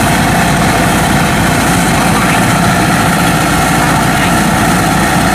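Engine of a homemade Vietnamese rice combine harvester running steadily at idle, with an even hum and no change in speed.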